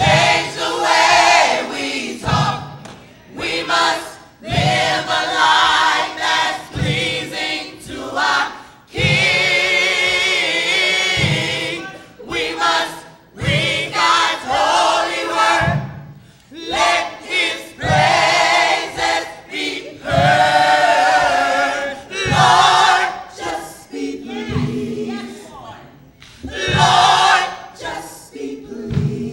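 A women's gospel choir singing in phrases of a few seconds, with short breaks between the lines.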